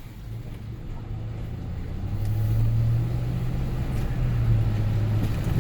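Vehicle engine running at a steady low drone with tyre and road rumble, heard while driving; it grows louder over the first couple of seconds and then holds steady.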